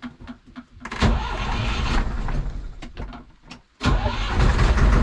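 Fishing boat's engine being started: it fires about a second in, falls away after a couple of seconds, then catches again near the end and settles into a steady low running.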